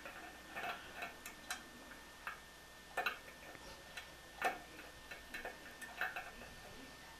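Faint, irregular metallic clicks and taps of an adjustable wrench working recessed bolts under a sink. The loudest clicks come about three and four and a half seconds in.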